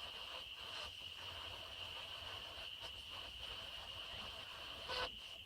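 Steady high-pitched chorus of small calling animals droning on without a break, with a brief pitched sound near the end.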